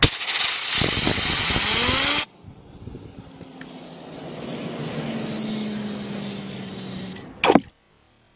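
A blast of compressed air from an air-compressor blow gun for about two seconds, with a rising whine inside it as the fidget spinner is spun up. Then a quieter whir with a steady hum for several seconds, and one short sharp burst near the end.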